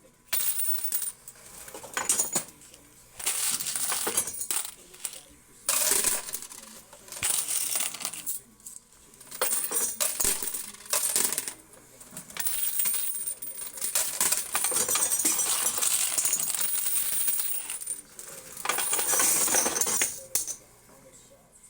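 Quarters clattering in a coin pusher machine: repeated stretches of metal coins rattling and spilling together, each lasting a second or two, with short pauses between.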